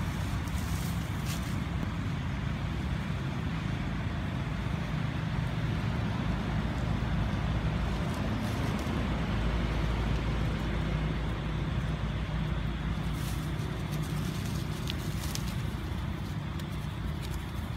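Steady low rumble of a motor vehicle engine running nearby, with a few faint short clicks over it.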